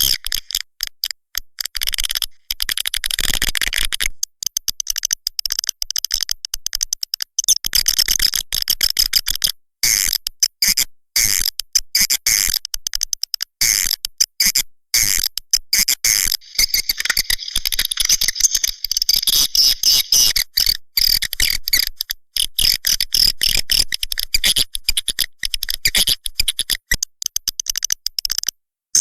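Swiftlet lure call recording: dense, rapid high chirping and twittering, chopped by many short gaps, played to attract swiftlets into a swiftlet house.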